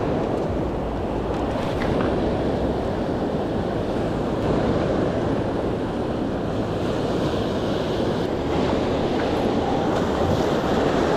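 Ocean surf washing in steadily close by, with wind buffeting the microphone.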